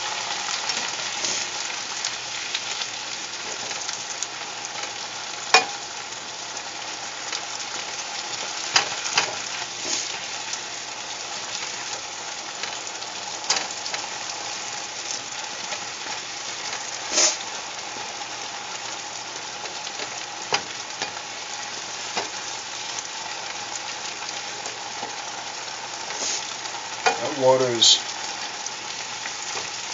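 Asparagus sizzling steadily in a hot pan of oil with a little water added to steam it. A utensil clicks against the pan every few seconds as it is stirred.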